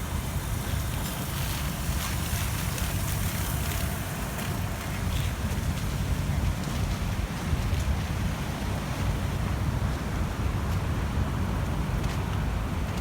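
Storm surf breaking on a sand beach under strong wind, with the wind buffeting the microphone as a steady low rumble.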